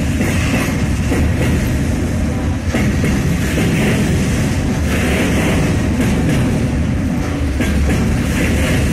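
Freight train of rail tank wagons passing close by: a steady, loud rumble of wheels on rails, with a hiss that swells and fades as each wagon goes by.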